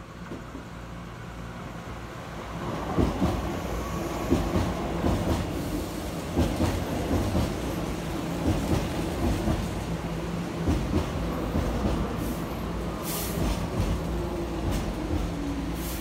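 Keihan 5000 series electric commuter train running past close to the platform. Its rumble builds over the first few seconds, and the wheels knock repeatedly over the rail joints.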